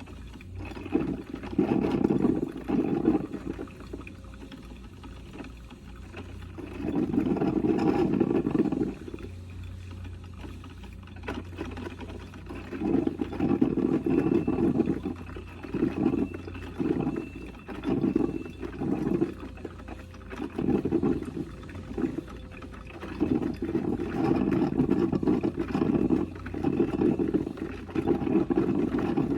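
Coffee percolator perking: irregular bursts of gurgling as boiling water is forced up the tube, coming closer together through the second half, over a steady low hum.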